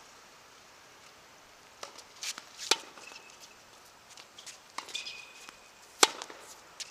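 Tennis ball struck by rackets and bouncing on a hard court during a rally: a string of sharp knocks, the loudest a racket hit about six seconds in. A couple of short high squeaks come between the hits.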